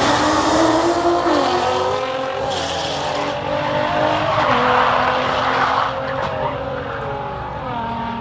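Nissan GT-R and Ford Mustang drag cars accelerating at full throttle down the quarter-mile. Their engines climb in pitch and drop back at each gear change, then fade as the cars pull away.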